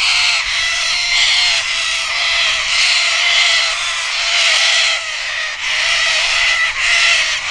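A flock of cockatoos screeching without pause, harsh overlapping calls swelling about once a second: the birds losing their minds.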